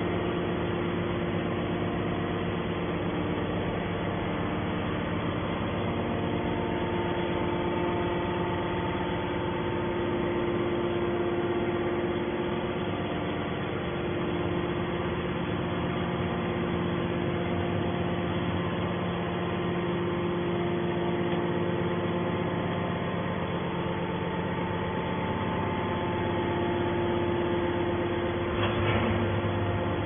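Hydraulic scrap metal baler's power unit running steadily with no pressing stroke: a steady mechanical hum with several held tones, swelling slightly at times.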